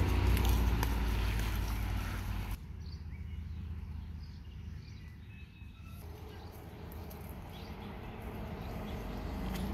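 Low rumble of wind buffeting an outdoor microphone. It is strongest at the start, dies down about halfway, then builds again toward the end.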